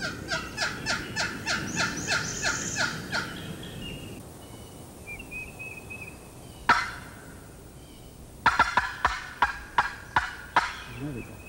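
Hand-held turkey call worked by a hunter: a run of short, evenly spaced turkey-like notes, about four or five a second for some three seconds. One sharp single note follows a little past the middle, then a quicker run of notes near the end. Faint bird chirps sound in the lull.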